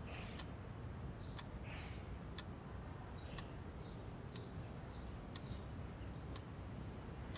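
Clock ticking once a second, crisp and even, over a low steady background rumble.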